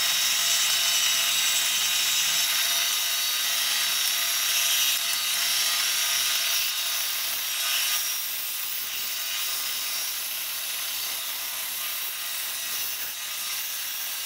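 Benchtop band saw running and cutting lengthwise through a blue plastic S&W 686 training replica (blue gun) on a freshly fitted blade: a steady, hissing cutting noise over the motor's hum, easing a little in the second half of the cut.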